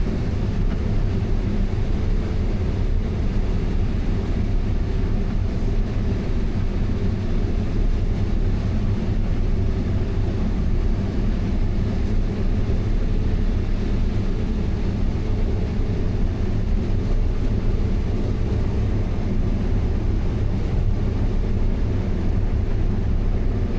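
Combine harvester running at a steady, unchanging drone in the corn, with a constant low engine hum.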